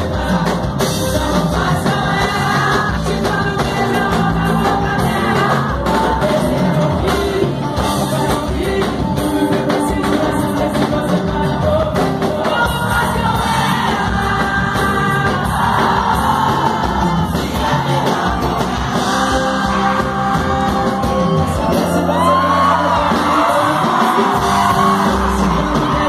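Live sertanejo band with accordion, electric bass, keyboards and drums playing loudly through a PA while a woman sings lead into a microphone, heard from the crowd in a large hall. Shouting voices join the singing near the end.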